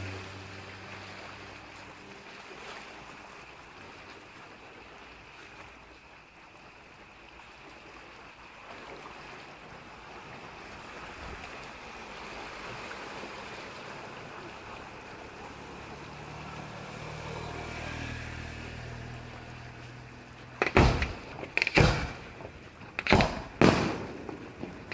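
Fireworks display: water-level fountain effects hiss steadily for about twenty seconds, with a low engine hum that fades and returns. About 21 s in, aerial shells begin bursting, about five loud bangs in quick succession.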